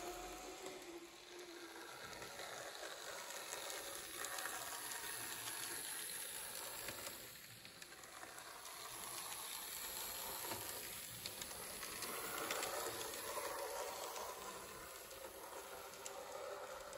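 Small-scale model trains running on a layout: a faint steady hiss that swells and fades, with light scattered ticks from the wheels on the track.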